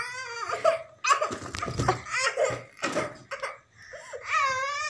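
A young child laughing in several bursts, the longest near the end.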